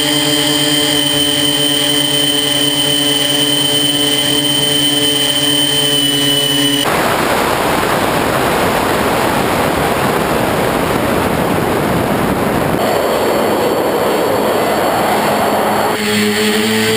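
Tricopter's electric motors and propellers whining at a steady pitch, heard from the onboard camera. About seven seconds in the whine gives way to a rush of wind noise as the craft comes down, and near the end the motor whine returns at a different pitch.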